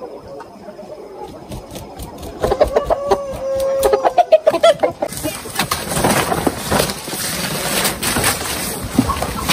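A flock of young chickens clucking, with one bird giving a loud drawn-out call a few seconds in. About halfway through, the sound changes to a loud rustling and crackling noise.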